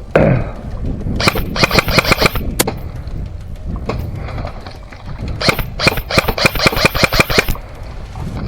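Airsoft guns firing in rapid full-auto bursts: one burst about a second in and a longer one near the middle to late part, each a fast run of sharp cracks. A short falling whoosh is heard right at the start.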